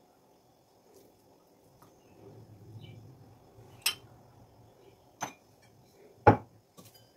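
Metal spoon and bowls clinking on a kitchen counter. A soft rustle of filling being spooned is followed by three sharp clinks about a second apart, the last the loudest and deepest.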